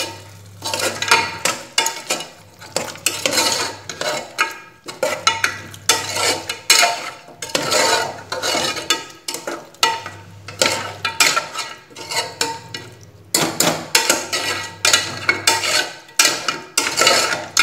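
Metal spoon stirring and scraping liver pieces frying in an open pressure cooker: a quick run of scrapes and clinks against the pot, with a few short pauses.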